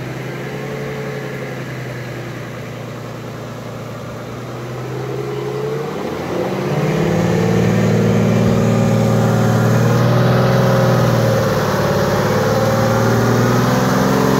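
Lifted Lada Niva's engine runs at steady low revs, then is revved up about six seconds in and held at high revs as the 4x4 pulls through the mud. The revs dip briefly about two-thirds of the way through and climb again.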